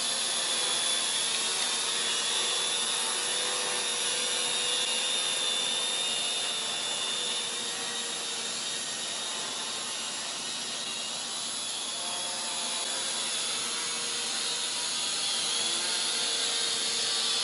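Small quadcopter drone's motors and propellers whining steadily in flight, with a buzzing hiss and several tones that waver slightly in pitch as the motor speeds shift.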